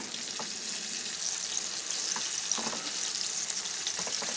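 Flour-dredged turkey tenderloins frying in hot oil: a steady sizzle with scattered small pops and crackles, growing slightly louder toward the end.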